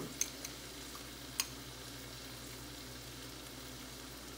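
Beaten eggs frying in melted butter in a frying pan: a steady gentle sizzle, with a few short sharp clicks in the first second and a half, the loudest about a second and a half in.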